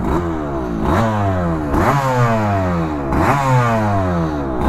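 Freshly rebuilt 1991 Suzuki RGV250 VJ22's two-stroke V-twin through Arrow exhausts, revved from idle four times, each rev rising sharply and falling back. It sounds great: the rebuilt engine is running well.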